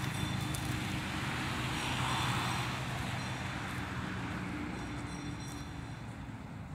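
A steady engine hum that swells to its loudest about two seconds in and then slowly fades, like a motor vehicle passing some way off.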